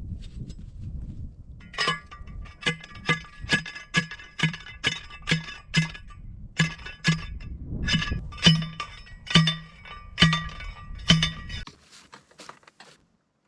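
Repeated hammer blows on metal, about twenty ringing strikes at roughly two a second with a short pause partway through, over a low background rumble that stops near the end.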